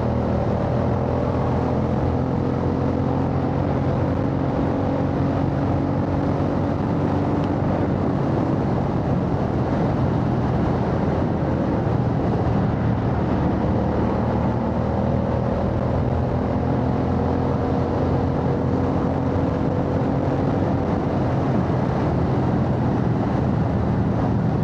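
Royal Enfield Bear 650's parallel-twin engine running through a Red Rooster Performance aftermarket exhaust while riding at a fairly steady speed, its pitch drifting gently up and down, over a steady rush of wind and road noise.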